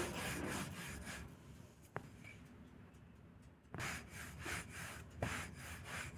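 Wooden rolling pin rolling out tart dough on a floured wooden board: repeated rubbing strokes, a pause of a couple of seconds in the middle with a single light tick, then more strokes.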